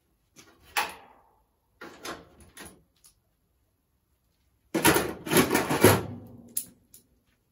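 Steel body panel and clamps being handled while a new Mini scuttle is fitted: a few light knocks, then about a second of louder, dense clattering around the middle, and two short ticks near the end.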